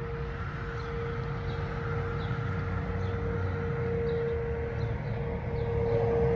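Outdoor tornado warning siren howling on one steady tone, growing louder near the end, over a low rumble, with birds chirping.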